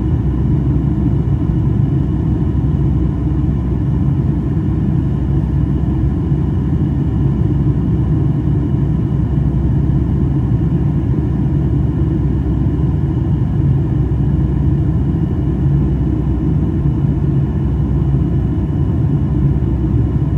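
Steady low cabin rumble inside a Boeing 757-200 airliner in flight: engine and airflow noise heard through the cabin, even and unchanging, with a faint steady whine above it.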